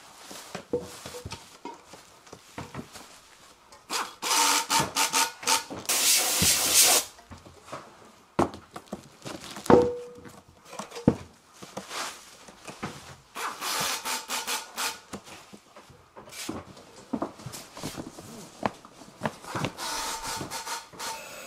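Bubble wrap rustling and crinkling in loud bursts as a stainless steel pan is wrapped by hand, mixed with cardboard boxes being handled and slid. There is a sharp knock with a short ring about ten seconds in.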